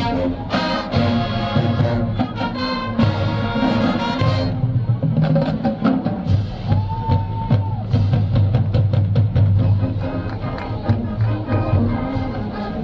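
College marching band playing, with brass horns over a steady drum beat.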